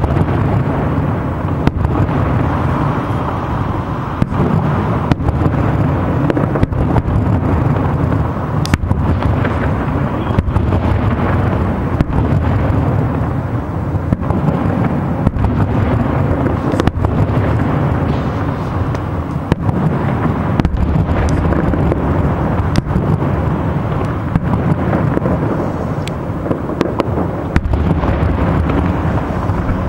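Aerial firework shells bursting in a continuous display: sharp bangs about once a second over a steady low rumble of booms.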